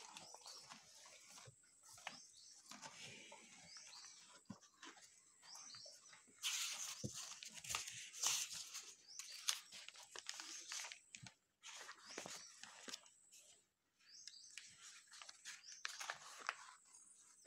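Handling noise from a conch shell being turned in the hand close to the phone: irregular scraping and rubbing with scattered taps, loudest for a few seconds in the middle.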